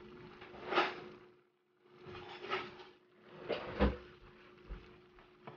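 Kitchen handling noises: several spells of rustling and scraping with a few sharp knocks, like things being moved and set down, over a faint steady hum.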